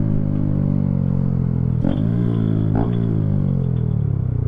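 Motorcycle engine winding down in pitch as the bike slows to park, with two downshifts about two and three seconds in, each a click followed by a brief rise in engine pitch.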